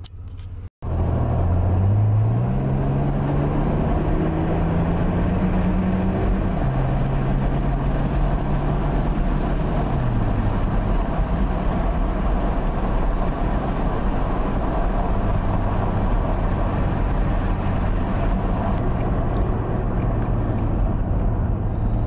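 Chevy S-10 pickup's engine heard from inside the cab as the truck pulls away. The engine note rises for about five seconds and drops as it shifts up, about six seconds in and again near ten seconds, then settles to a steady cruise under constant tyre and road noise.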